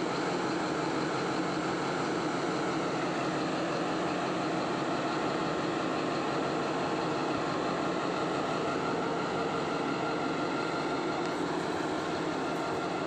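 Alsthom diesel-electric locomotive's engine running steadily, a dense even drone with no breaks.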